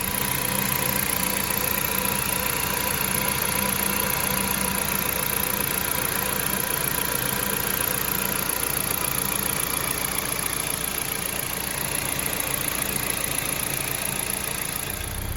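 2010 Jeep Patriot's 2.0-litre four-cylinder engine running steadily, free of the metal clanking it made before. The clank went away once the alternator was replaced, so the old alternator was its cause.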